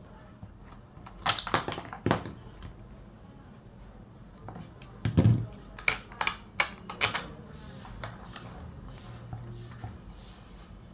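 Irregular sharp clicks and knocks of hands handling parts around the exposed carburetor and throttle linkage of a Stihl 440 chainsaw. There are a couple of clicks about a second and two seconds in, then a quicker run of clicks with one duller knock from about five to seven seconds.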